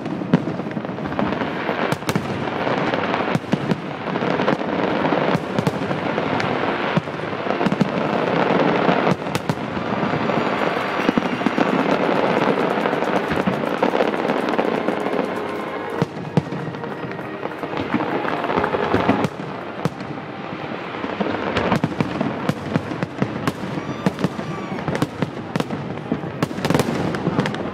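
Fireworks going off in quick succession: a dense, continuous run of bangs and crackling, with many sharp reports overlapping.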